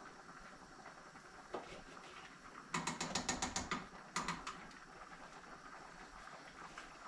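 Gas range burner igniter clicking rapidly, a run of about eight clicks and then a shorter second run, as a burner is lit.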